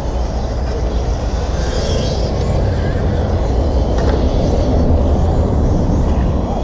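Electric 1/10-scale RC touring cars running laps, their brushless motors whining in rising and falling glides, over a steady low rumble.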